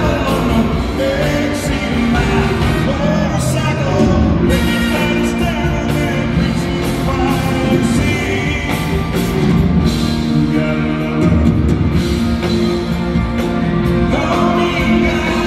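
Live country band playing, with a male lead vocal over guitars and a drum kit, heard from high in the stands of a large arena.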